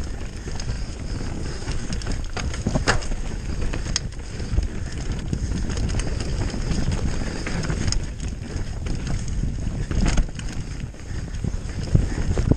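Mountain bike descending a dry dirt trail at speed: a steady rumble of tyres on the ground and wind buffeting the microphone, with sharp clacks of the bike rattling over bumps several times.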